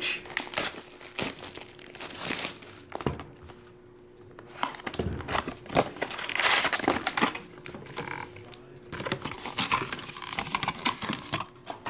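Plastic shrink-wrap being torn and crinkled off a hobby box of trading cards, followed by the cardboard box and its foil card packs being handled, in irregular crackly rustles.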